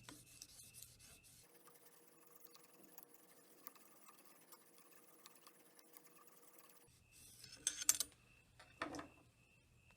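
Mostly quiet, with faint ticks. Near the end come three short scraping strokes of a Lansky sharpening hone drawn along a knife edge.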